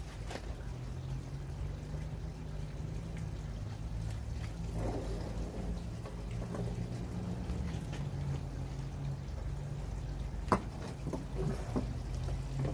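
Muffled rubbing and rustling of a sweatshirt brushing against the microphone over a steady low hum, with a sharp knock about ten and a half seconds in and a few smaller clicks after it.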